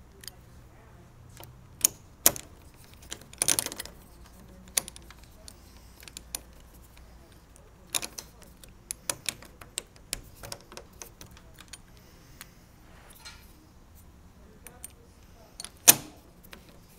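Metal deadbolt parts clicking and rattling as the keyed cylinder is worked onto the latch in a door's bored hole. Sharp clicks come scattered throughout, with a brief rattle about three and a half seconds in and a loud knock near the end.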